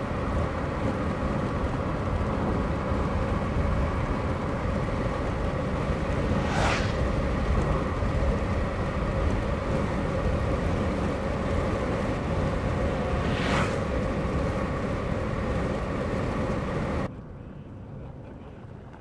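Steady wind rush and low rumble buffeting the microphone, with a faint steady hum underneath. Two brief swishes come about seven seconds apart, and the noise drops off suddenly near the end.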